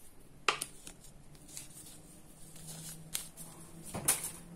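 Hands handling small paper sachets and ration packaging on a table: a few light clicks and rustles, the sharpest about half a second in and a small cluster near the end, over a faint low hum.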